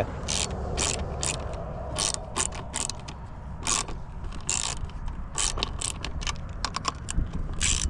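Ratcheting clicks in short irregular strokes, roughly one or two a second, over a low steady rumble.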